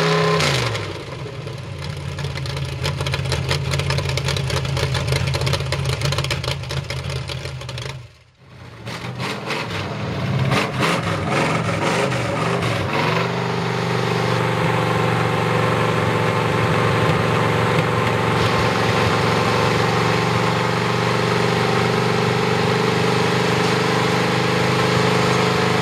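V8 mud truck engines running through open headers, loud and steady at idle. The sound breaks off briefly about a third of the way in. A second V8 then runs unevenly for a few seconds before it settles into a steady idle.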